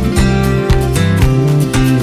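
Background music: upbeat acoustic guitar strumming over a steady beat.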